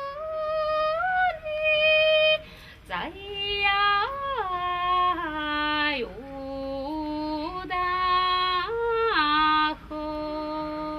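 A woman singing solo, unaccompanied: a slow melody of long held notes joined by sliding bends in pitch, ending on a long low held note.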